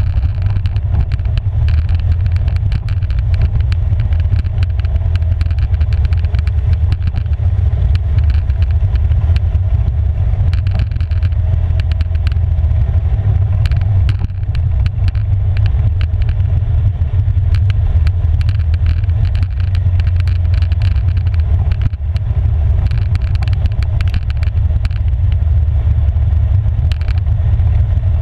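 Polaris 570 ATV's single-cylinder engine running at a steady trail pace, under a heavy low rumble, with frequent sharp clicks and knocks as it rolls over the gravel road.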